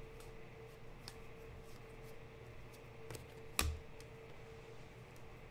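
Baseball cards being flipped through by hand: light ticks and clicks of card edges, with one sharper knock about three and a half seconds in, over a faint steady hum.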